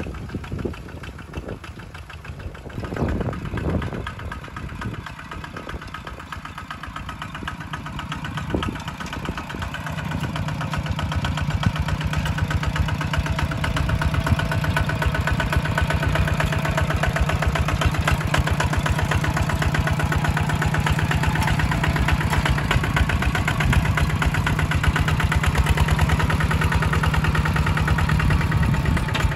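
Single-cylinder diesel engine of a walk-behind two-wheel tractor running steadily with a rapid chug while it drives a rotary tiller through wet soil. It is faint at first and becomes close and louder from about ten seconds in.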